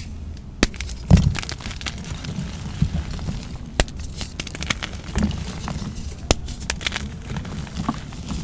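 Gym chalk blocks being squeezed and crumbled by hand: scattered sharp cracks and crackles as pieces snap off, with a couple of duller crunches.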